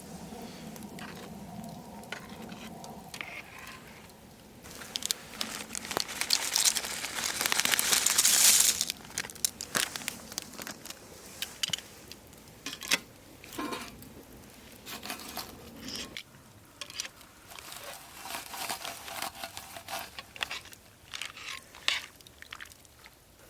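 Crinkling and rustling with scattered clicks, loudest about six to nine seconds in.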